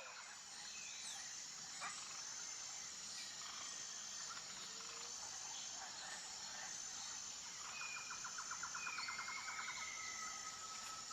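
Faint natural outdoor ambience: a steady high insect buzz in repeating pulses, with a bird's rattling trill and a few whistled bird calls toward the end.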